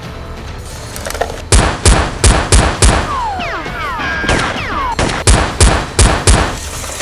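Gunfire sound effects: two bursts of about five rapid shots each, roughly three a second, the second burst coming about three and a half seconds after the first. A few quick sliding whistle-like tones come just before the second burst.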